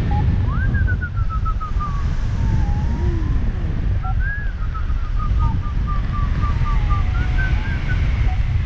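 Wind rushing over the microphone in paraglider flight, with a variometer beeping in quick runs of short tones, about a second in and again from about four to seven seconds, each run stepping slightly down in pitch: the vario signalling weak lift.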